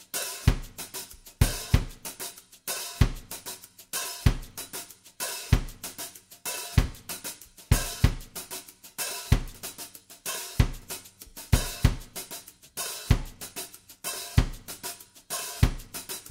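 Drum kit playing a steady beat on its own: deep kick-drum thuds about every second and a quarter, with snare and hi-hat or cymbal hits between them.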